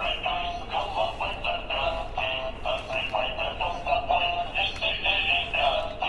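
A remote-controlled toy robot's built-in speaker playing one of its preset songs: a synthesized sung melody with a quick run of short notes. It is thin and tinny, with no bass.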